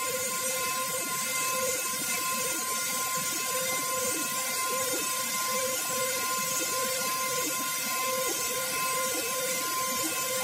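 CNC mill spindle driving a WIDIA WCE4 10 mm four-flute solid carbide end mill in high-speed trochoidal (iMachining) milling of stainless steel. A steady machine whine and hiss, with a pulsing that comes and goes about twice a second as the cutter sweeps through the cut.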